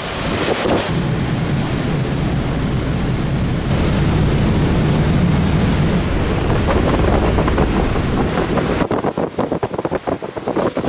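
High wind buffeting the microphone over the rush of a rough, storm-whipped sea. A steady heavy rumble that turns into choppy, gusting buffets about nine seconds in.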